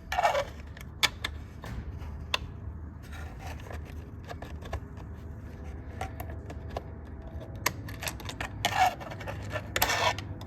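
Light metal clicks and scrapes of hand work on a small aircraft door latch mechanism while a new spring and 4-40 screw are fitted, with short scraping rasps right at the start and again twice near the end.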